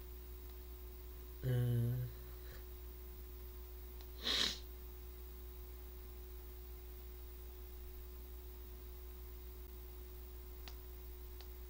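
A man gives a short hummed 'hmm' about one and a half seconds in and a quick sharp breath through the nose around four seconds in, over a steady low electrical hum. Two faint clicks near the end.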